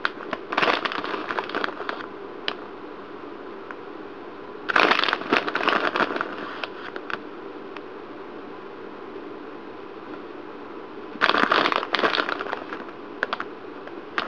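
Grated cheese being handled and sprinkled by hand, making crackling, rustling noises in three bursts of a second or so each.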